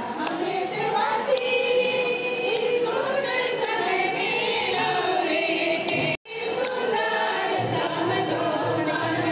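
A group of women singing together, several voices wavering in pitch; the singing breaks off for an instant about six seconds in and carries on.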